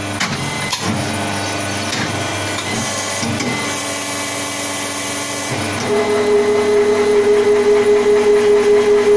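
Small injection moulding machine running its automatic cycle, its electric motor and hydraulic pump humming. There is a hiss in the middle, then about six seconds in the hum turns louder and steadier and pulses.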